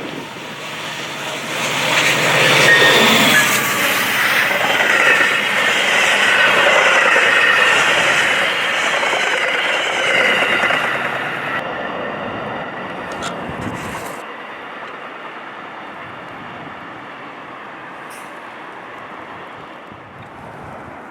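Train passing: the rushing noise of wheels on rail swells about two seconds in, stays loud for several seconds, then fades away.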